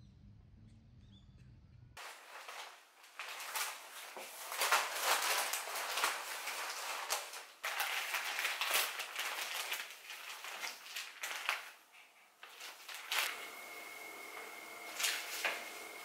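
A few faint bird chirps, then a sudden change to irregular dry rustling and crackling with sharp clicks, as of things being handled. Near the end a steady high-pitched tone sets in.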